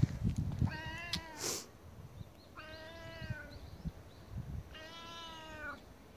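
Domestic tabby cat meowing three times, each call under a second long, about two seconds apart. A low rumble of handling or wind noise is heard in the first second.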